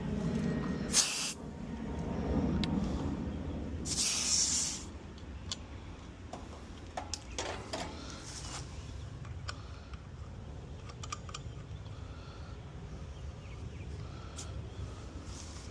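Two short hisses, like gas escaping under pressure, the second about four seconds in and longer than the first. Then a low steady background with scattered light clicks.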